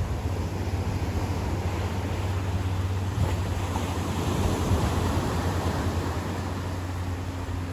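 Ocean surf washing steadily onto a beach, with a low rumble of wind buffeting the microphone.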